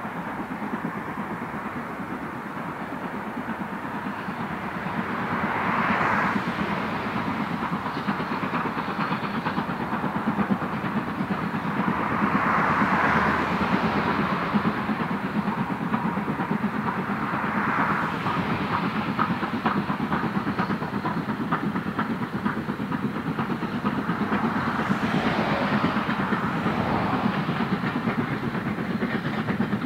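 Steam tank locomotive passing with its train: the steady run of the engine's exhaust and the rumble and clatter of wheels on the track, swelling in loudness several times.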